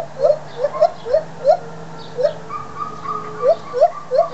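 White-handed gibbons (lar gibbons) calling: a string of short rising whoops, about two or three a second, with a longer held higher note running under them in the second half.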